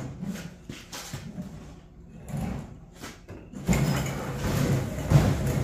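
Light knocks, then about two-thirds of the way in a heavy rolling rumble starts: a tool box being rolled on its casters across the concrete garage floor.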